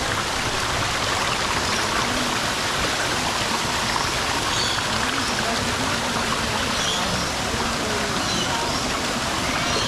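Steady rushing of water, an even hiss that does not change, with a few faint high chirps over it.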